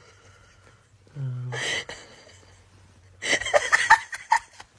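A person gives a short, low groan about a second in, then a run of short, giggling laughs about three seconds in.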